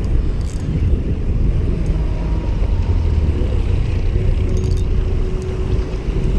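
Steady low rumble with no clear pitch, with a faint thin tone held for a couple of seconds in the second half.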